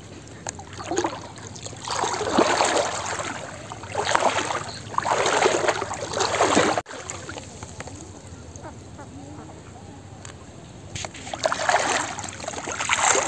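Shallow muddy water sloshing and splashing around a person's legs as he wades, in uneven bursts of strides, with a quieter pause in the middle.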